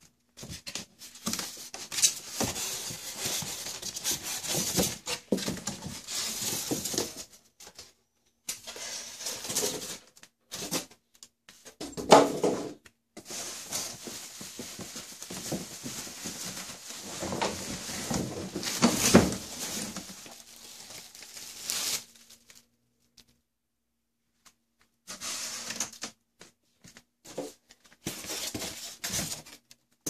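Unboxing noise of a microwave oven's packing: the plastic bag around the oven crackling and rustling and the polystyrene foam insert scraping against the cardboard box as they are handled, in bursts with short pauses and one longer silent stretch about two-thirds of the way through.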